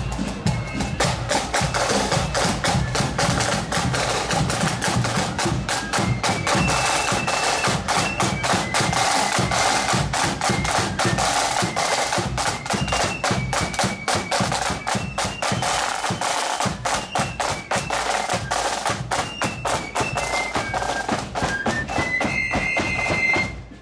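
Marching flute band playing a tune: flutes carry the melody over a steady rattle of snare drums and a bass drum beat. The playing stops just before the end.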